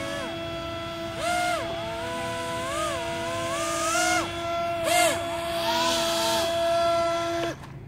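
Fan motors of a small 3D-printed RC hovercraft whining: one holds a steady pitch, while another rises and falls in repeated swells as the throttle is worked. The steady whine cuts off about seven and a half seconds in.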